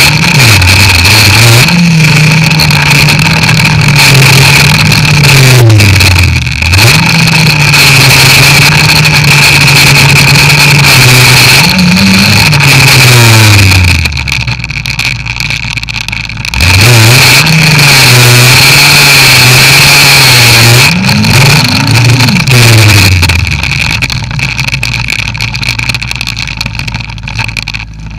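Snowmobile engine running under throttle, recorded from the rider's seat. It holds a steady pitch, eases off and picks up again several times, gives a short rev a little before the end, and then drops to a lower, quieter run.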